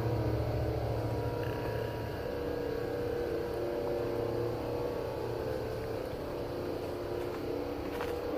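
A steady droning hum made of several held low tones, of the kind posted as a strange sound heard in the sky; the deepest part of the drone eases off after about two seconds.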